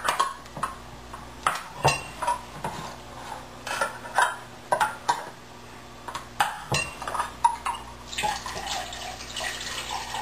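Clinks and knocks of a metal can and container being handled. About eight seconds in, chicken stock starts pouring from the can into a mixing container in a steady stream.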